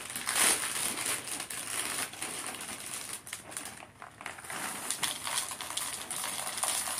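Plastic liner bag of a cereal box crinkling and rustling as it is pulled open and handled, loudest about half a second in.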